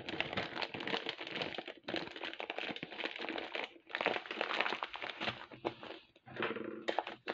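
A clear plastic bag holding half a kilo of glass seed beads crinkling and crackling as it is squeezed and turned over in the hands, in several runs with short pauses.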